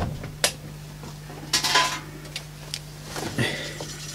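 Clicks, knocks and rattles of equipment being handled while a CD player is set up, over a steady low hum.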